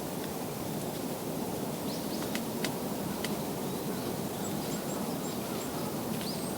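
Steady outdoor background hiss with a few short, high bird call notes: a cluster of sharp ticks about two to three seconds in, then thin high chirps near the end.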